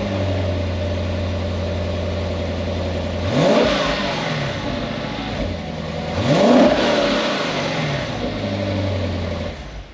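Lexus GS F's 5.0-litre V8 on its stock factory exhaust, idling just after start-up and blipped twice, each rev rising and falling back to idle, then switched off near the end.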